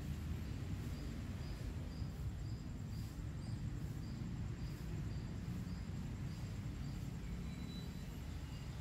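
Outdoor background noise: a steady low rumble, with a faint high chirp repeating about twice a second.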